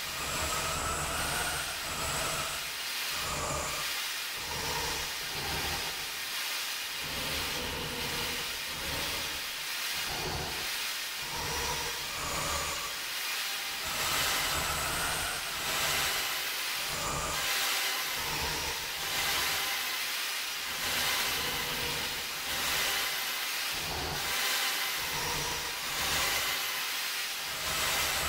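Music slowed 400% into a space-ambient wash: a smeared, hissing drone with a slow, uneven throbbing in the low end.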